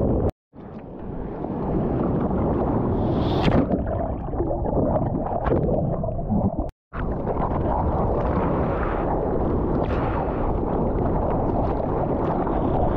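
Wind and surf water rumbling and rushing on a GoPro action camera's microphone, a heavy, dense noise. It cuts to silence for a moment twice, just after the start and about halfway through, and a brief higher hiss rises about three and a half seconds in.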